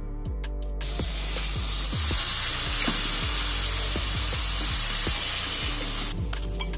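Onions, tomatoes and spices sizzling as they fry in oil and are stirred in a pan. The sizzle starts about a second in and cuts off shortly before the end, over background electronic music with a steady beat.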